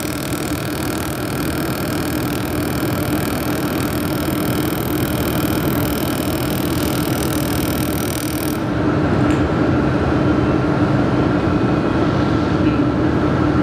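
Handheld laser welding machine running with a steady hum and hiss, with a set of high whining tones that cut off suddenly about two-thirds of the way through.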